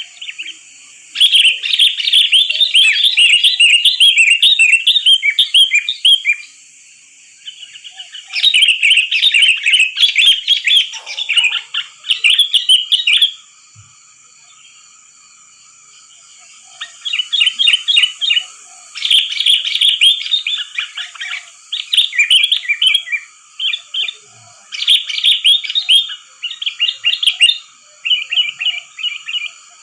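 Sooty-headed bulbul song: bursts of rapid, bubbling chirps and warbles, broken by two longer pauses about a third and halfway through. A steady faint high whine runs underneath.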